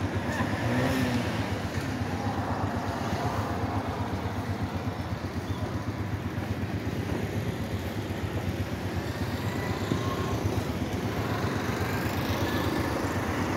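Steady rumble of road traffic and engines.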